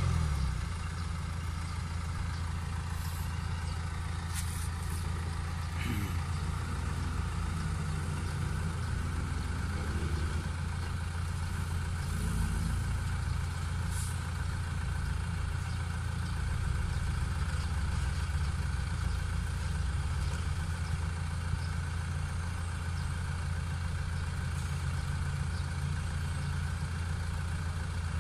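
Diesel engines of a Caterpillar excavator and dump trucks running steadily as a low rumble, with the trucks manoeuvring around the excavator and a few faint knocks.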